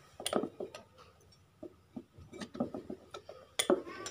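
Irregular light clicks and knocks, unevenly spaced, some with a short ring.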